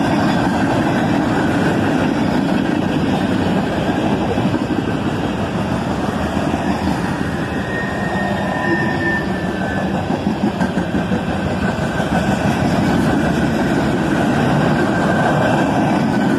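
Freight train rolling past close by: a steady rumble and clatter of the cars' wheels on the rails, with a faint brief squeal about halfway through.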